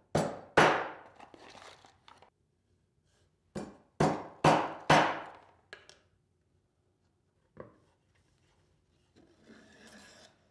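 Hammer blows driving 1-inch decorative wrought iron nails into pre-drilled holes in a wooden box: two sharp strikes, a pause, then four strikes in quick succession and a lighter tap. A soft rustle near the end as the box is handled.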